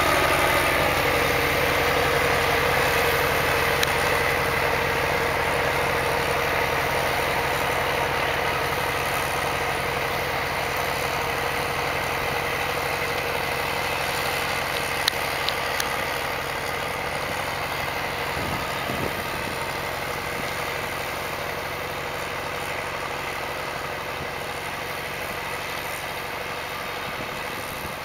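White 4-155 tractor running steadily while its snowblower throws snow: an even engine drone under a rushing hiss of blown snow, growing gradually fainter as the tractor moves off.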